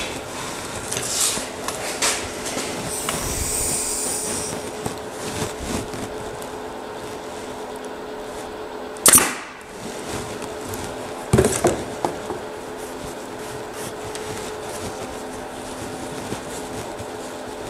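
Upholstery staple gun firing once with a sharp, loud crack about nine seconds in, followed by a few lighter clicks a couple of seconds later. Between shots there is quiet rustling of fabric being smoothed along a wooden chair arm over a faint steady hum, with a short hiss about three seconds in.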